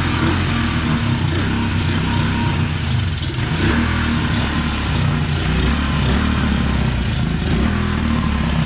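2016 Tao Tao 110cc pit bike's single-cylinder four-stroke engine running steadily just after a kick start, idling high and a little rough. The owner traces the high idle, which the idle screw does not bring down, to a leaking gasket drawing in air.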